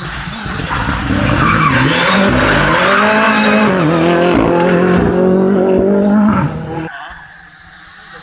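Ford Fiesta rally car's engine driven hard through a bend, its pitch dipping and rising as it slows and accelerates, loud for several seconds and then dropping away quickly after about six and a half seconds as the car leaves.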